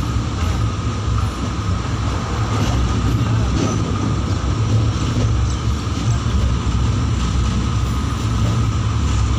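Passenger train running at speed: a steady low rumble of wheels on the track with a faint steady whine above it, heard from inside the carriage.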